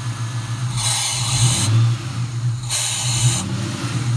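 A Mustang GT V8 idling with its idle air bypass hose pulled off, a way of keeping it running on a failed mass airflow sensor. Loud hissing of air rushing in through the open hose comes and goes three times, about every two seconds.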